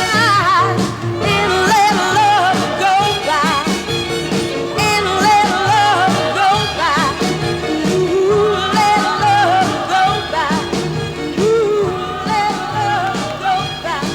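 Soul music with a singer over a band and a steady drum beat.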